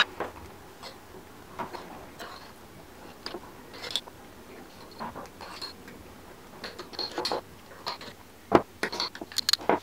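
Metal teaspoon scooping solid coconut oil and scraping and tapping it off into a small glass jar: scattered light clicks and scrapes, with a quicker run of sharp taps near the end.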